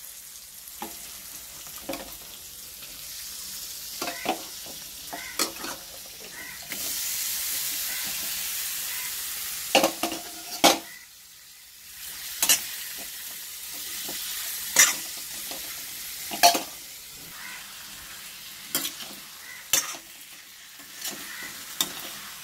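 Marinated chicken frying in a kadai: a steady sizzle, with a metal spatula scraping and knocking against the pan every second or two as it is stirred. The sizzle swells for a few seconds in the middle.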